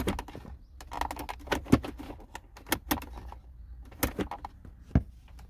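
Irregular plastic clicks and knocks from a Kia New Morning's heater mode-door lever linkage being worked by hand, the airflow-direction lever now moving freely after being re-hooked.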